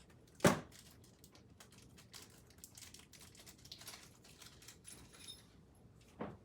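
Lamp parts being handled during assembly: scattered small clicks and rustles, with a sharp knock about half a second in and another near the end.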